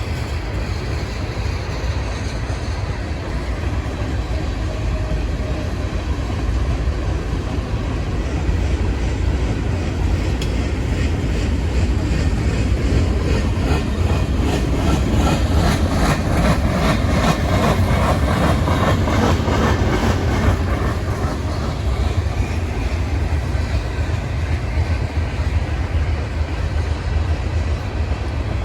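Norfolk Southern freight train's cars rolling past with a steady rumble. Partway through, a rhythmic clatter of wheels over rail joints builds, is loudest around the middle, then fades back into the rumble.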